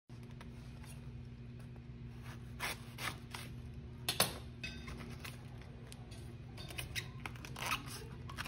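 Banana blossom bracts being peeled off by hand: scattered crisp snaps and rustles of the tough leaves, the sharpest one a little over four seconds in, over a steady low hum.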